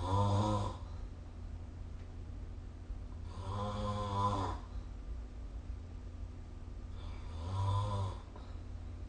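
A sleeping person snoring, picked up by a phone's microphone: three snores roughly four seconds apart, each lasting about a second with a low, steady pitch.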